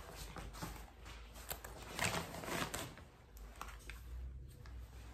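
Handling noise of charging cords and a plastic power adapter being pulled out of a carry bag: irregular rustling with small clicks and knocks, busiest about two seconds in.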